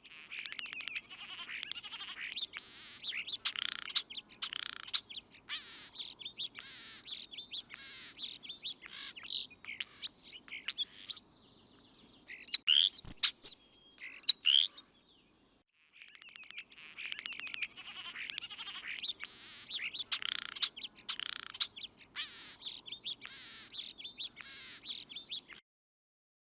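Songbird singing: quick runs of high chirps and short whistled slides. A burst of louder calls about halfway through divides two near-identical runs of song.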